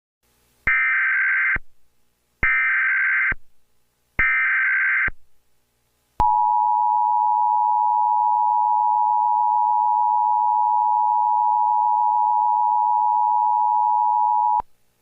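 Emergency Alert System header: three bursts of warbling data tones, each just under a second long, then about six seconds in the two-tone EAS attention signal, a steady high tone held for about eight seconds that cuts off sharply near the end. The sequence marks the start of a new emergency alert.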